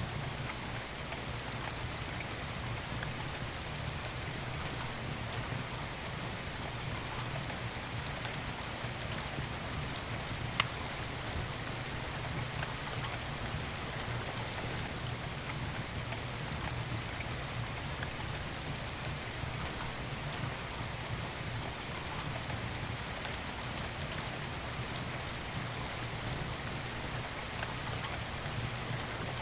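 Steady rain falling, with a wood fire crackling under it. One sharp pop about ten seconds in.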